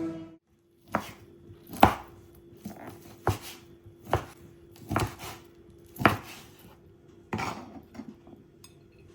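Knife chopping food on a cutting board: about nine separate strokes, roughly one a second and unevenly spaced, over a faint steady hum.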